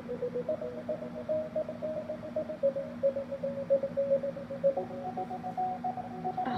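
Soft, slow background music: held notes that shift gently in pitch every second or two.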